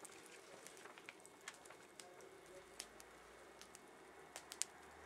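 Campfire crackling faintly, with scattered sharp pops of burning wood, a few louder ones near the end.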